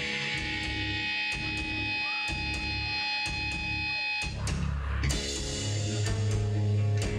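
Live death metal band playing: distorted electric guitars, bass and drum kit, with regular cymbal strikes over a heavy low end. About four seconds in, the band breaks into a new section with a crash and a lower riff.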